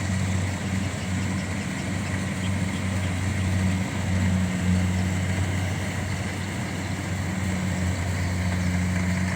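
Engine of a rice harvesting machine running steadily with an even hum.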